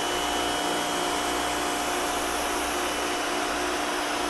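Electric pressure washer running, its motor and pump giving a steady whine under the hiss of the high-pressure water jet from a 25-degree nozzle striking vinyl siding.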